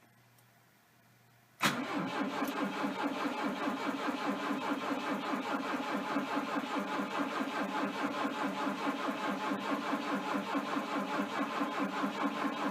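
Starter cranking the Volvo 242 Turbo's four-cylinder turbo engine in an even, steady rhythm that starts suddenly about two seconds in; the engine turns over without catching.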